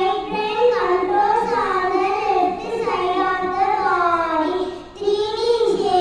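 A young girl singing into a handheld microphone, holding long notes that slide up and down, with a short break for breath about five seconds in.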